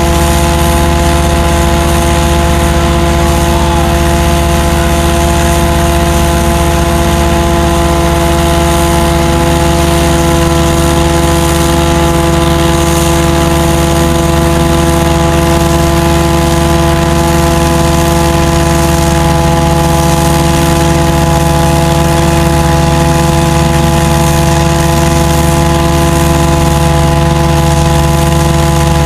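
JVLT jetting and vacuum unit running, with the jetter and the vacuum working at once: a loud, steady engine drone with a constant whine on top.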